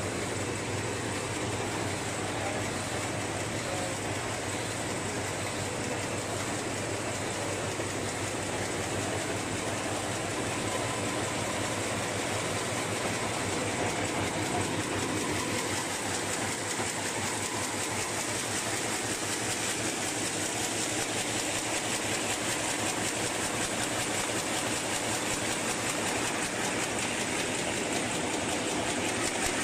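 LSD-400B automatic high-speed paper bag making machine running: a steady mechanical clatter with a rapid, even ticking rhythm that grows more distinct about halfway through.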